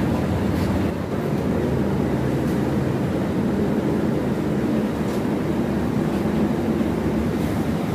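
Steady low rumble of aircraft and airport machinery heard from inside a jet bridge while boarding, with a few faint clicks of movement over it.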